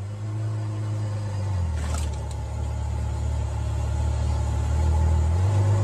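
Ferrari sports car engine running at low revs as the car creeps along, a steady low rumble that drops in pitch early on and picks up again near the end. A brief sharp click sounds about two seconds in.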